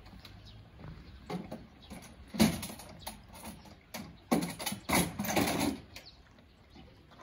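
Metal clanking and rattling from the fold-down rear ramp of a mobile library van being packed away: one sharp clank about two and a half seconds in, then a rattling clatter from about four to six seconds.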